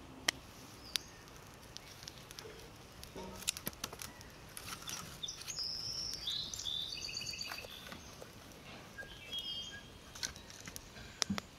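Sticks and split firewood knocking and clattering as a campfire is laid and kindled, in scattered sharp clicks. Birds chirp in short repeated high notes from about five to eight seconds in.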